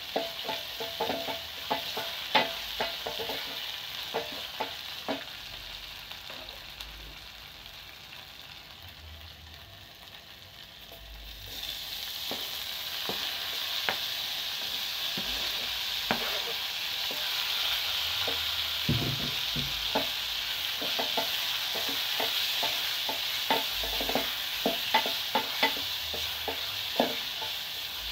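Onions and vegetables sizzling as they fry in oil in a metal pot, stirred with a spoon that knocks and scrapes against the pot again and again. The sizzle fades for a few seconds, then grows louder about twelve seconds in, as chopped tomatoes go into the pot.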